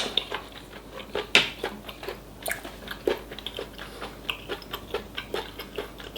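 A person chewing food close to the microphone, with irregular wet mouth clicks and small crunches.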